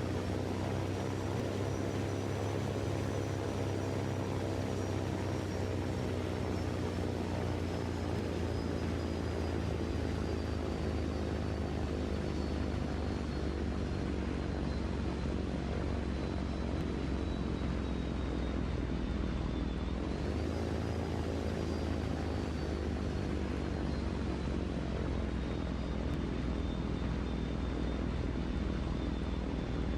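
A steady engine drone carrying a thin high whine that slowly falls in pitch, jumps back up about twenty seconds in, then falls again.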